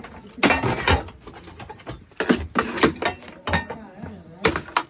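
A series of sharp knocks and clinks from metal kitchen utensils and pots being handled and struck against each other, in several separate clusters.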